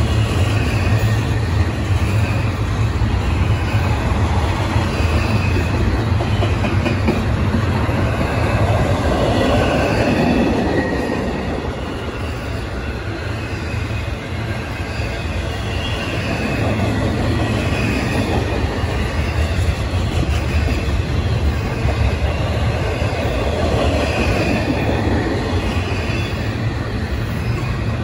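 Double-stack intermodal container cars rolling past: a steady rumble of steel wheels on rail, with short faint wheel squeals now and then.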